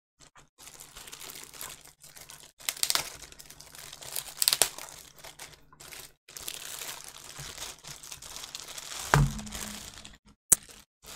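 Clear plastic bag crinkling and crackling as a keyboard is slid out of it, with louder crackles a few seconds in and a dull knock near the end.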